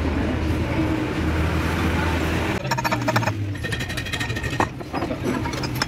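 A motor vehicle engine running steadily as a low hum. For about two seconds past the middle it is joined by a fast run of sharp, evenly spaced clicks.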